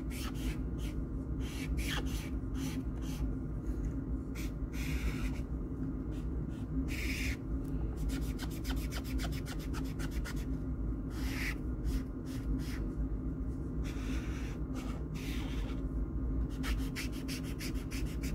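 A felt-tip marker scratching across sketchbook paper in quick, repeated back-and-forth strokes as an area is filled with colour, over a steady low hum.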